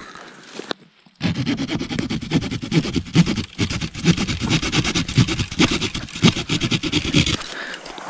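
Leatherman Wave Plus multitool's folding saw blade cutting a thin green birch stem with quick back-and-forth strokes. The sawing starts about a second in and stops shortly before the end, as the stem is cut through.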